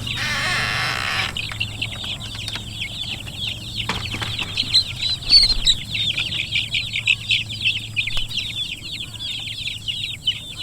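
A crowd of young Freedom Ranger broiler chicks peeping continuously, many short high cheeps overlapping. A brief rustle in the first second and a single knock about four seconds in come from handling the birds.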